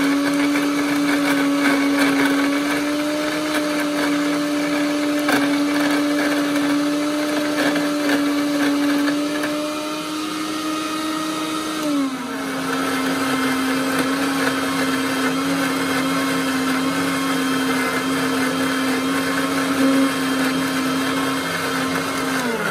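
Electric mixer grinder running with its small steel jar, grinding a wet masala paste of coconut, ginger, garlic, chilli and coriander: a steady motor whine. About halfway the pitch drops a little and it runs on lower, then the motor winds down near the end.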